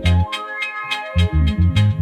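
Instrumental dub reggae music with keyboard chords and steady percussion. The bass line drops out for about a second shortly after the start, then comes back in.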